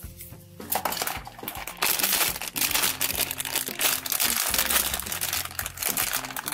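Foil blind-box bag crinkling and tearing as it is pulled open by hand, a dense run of crackles starting about a second in and getting louder.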